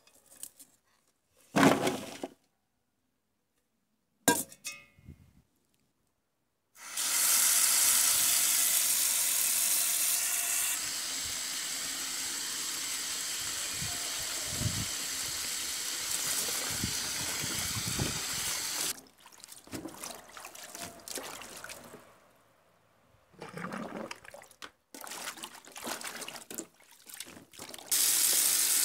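Kitchen tap running into a stainless steel sink onto a pile of yellow bush beans. The water comes on about seven seconds in, stops about two-thirds of the way through, and runs again near the end. In between, the beans are swished and handled in the water, and there are two short loud clatters in the first five seconds.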